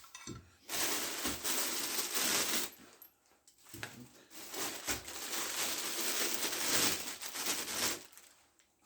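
Handling noise while unpacking a machine: two long stretches of rustling and scraping, the first about two seconds, the second about four, with a few light knocks.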